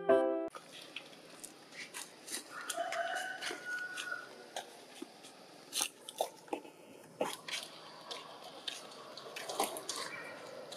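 Piano music stops about half a second in. Then come scattered soft clicks and taps from macaques moving about and chewing, with a few faint short high calls a couple of seconds in.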